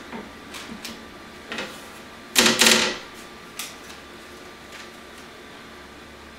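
2-inch blue tape being pulled off its roll and pressed onto a 3D printer's build plate: scattered small clicks and crackles, with a louder ripping burst about two and a half seconds in.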